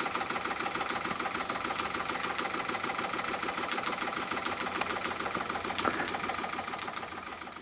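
Wilesco D28 toy steam engine running steadily on live steam, with a rapid, even mechanical beat. It fades out near the end.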